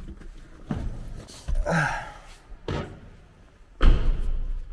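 A few knocks and handling bumps, then a car door shutting with a heavy thud near the end, the loudest sound.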